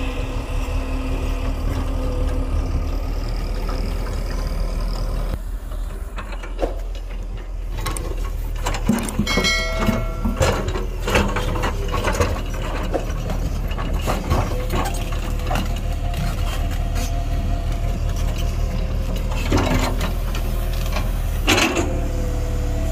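JCB JS140 tracked excavator's diesel engine running steadily, with the bucket knocking and scraping against rock and soil from about eight seconds in, and a short squeal of metal near ten seconds.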